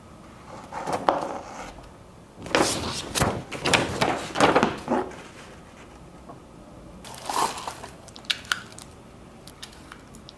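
Large folded paper instruction sheet rustling and crinkling as it is handled and folded, in several bursts, the longest and loudest in the middle. A few light clicks near the end.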